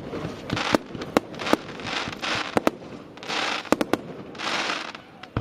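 Fireworks shells bursting: about nine sharp bangs, with several half-second stretches of hissing crackle between them and one of the loudest bangs near the end.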